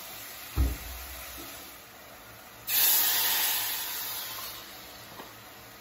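A thump about half a second in. Then, nearly three seconds in, cooked dark beans hit hot oil in a preheated clay pot with a sudden loud hiss and sizzle of steam that fades away over about two seconds.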